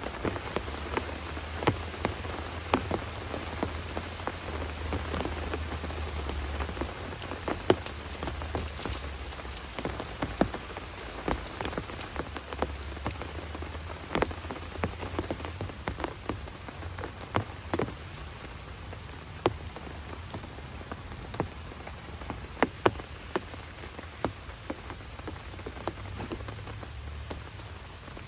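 Steady rain, with many separate heavier drops hitting a tarp overhead at irregular moments and a low rumble underneath.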